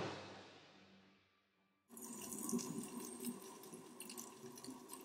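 A music sting fades out, and after a short silence underwater ambience starts: a faint hiss of water with scattered crackling clicks over a low steady hum.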